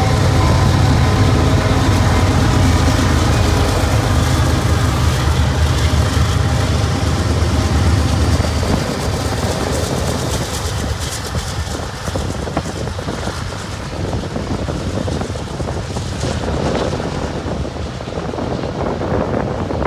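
Union Pacific diesel freight locomotives passing close, their engines droning low and loud. About nine seconds in, the engine drone gives way to the rumble and clatter of freight cars rolling by on the rails.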